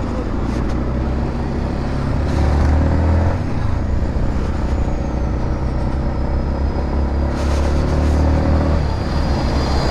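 Yamaha MT-15's single-cylinder engine running as the motorcycle is ridden, its pitch rising twice as it accelerates, over a steady low rumble of wind on the microphone.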